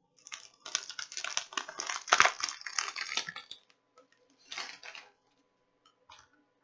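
Plastic Blu-ray case and its packaging being handled: a few seconds of rustling and clicking with a sharp loudest click about two seconds in, then a shorter burst of handling about four and a half seconds in.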